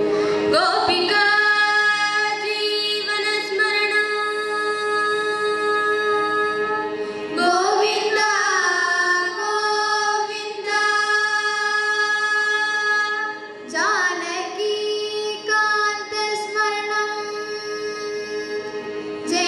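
A group of girls singing a Hindu devotional bhajan together in long, held notes with gliding ornaments. A new sung phrase begins about a third of the way through and again about two-thirds through.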